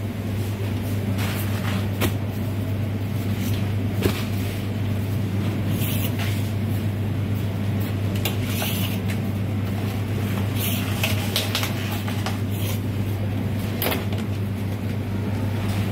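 Steady low hum of commercial kitchen machinery, with scattered clicks and rustles as fries, plastic takeaway trays and flatbread are handled on a steel counter.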